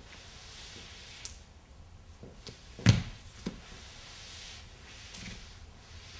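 A dancer moving on the floor in lead-coated gloves and shoes: soft scuffing with a few light knocks, and one heavy thump about halfway through.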